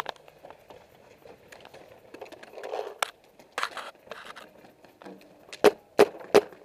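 Paintball marker firing: a couple of sharp single pops around three seconds in, then three quick shots about a third of a second apart near the end, with faint rustling and scraping of gear in between.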